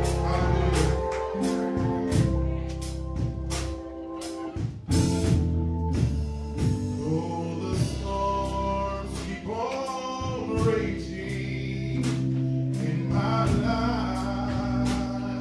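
A gospel song with a man singing into a microphone over drums and sustained held chords; the drum strikes come at a steady beat.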